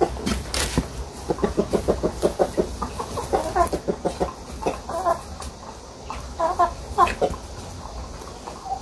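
Chickens clucking in quick runs of short calls, several a second, with a few sharp knocks among them.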